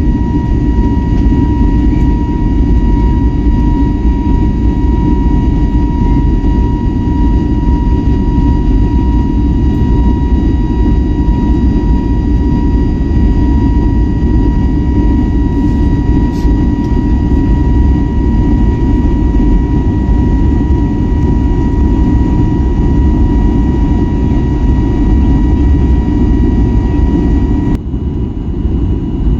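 Cabin noise of an Airbus A320neo: a loud, steady rumble of engines and airflow with a steady high whine over it. Near the end the whine drops out and the level dips briefly.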